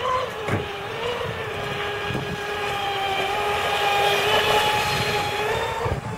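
Traxxas Spartan radio-controlled speedboat running flat out over choppy water, its electric motor and propeller giving a steady high whine whose pitch wavers slightly and rises near the end.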